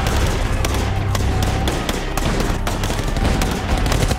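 Battle gunfire: scattered, irregular shots, roughly two a second, over a steady low rumble.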